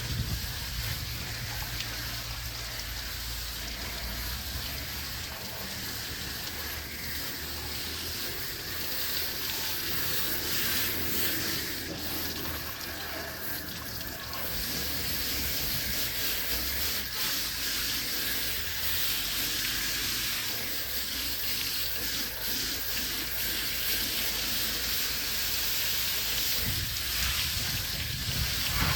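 Steady hiss of a water spray rinsing air-conditioner coils, washing off the coil cleaner and dirt.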